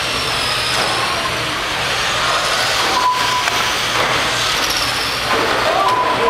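Several radio-controlled race cars running laps together, their motors whining up and down in pitch over a steady wash of noise.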